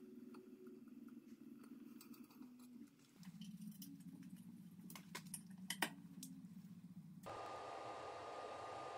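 Faint, sharp metal clicks from a tap wrench and hand tools working threaded holes in a steel plate, a handful scattered over a low steady hum. About seven seconds in, a steady hiss with a faint thin whine suddenly takes over.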